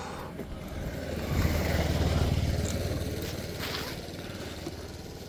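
A motor vehicle engine passing close by, growing louder over the first two seconds and then fading away.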